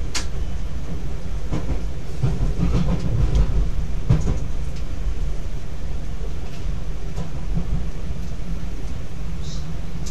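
Z 50000 Francilien electric multiple unit running, heard from the driver's cab: a steady low rumble of the running gear with sharp wheel clicks over rail joints and points in the first few seconds, and a brief high squeal near the end.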